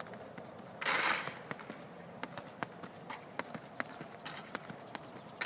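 Quick footfalls of a sprinter doing hurdle drills, sharp spike taps on the synthetic track a few times a second. Two short rushes of noise, about a second in and again at the end, are louder than the steps.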